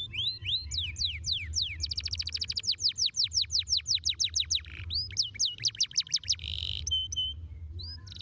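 Domestic canary singing: fast trills of quick sweeping whistled notes, with a long rapid run of falling notes in the middle and a few short level notes near the end, over a low steady hum.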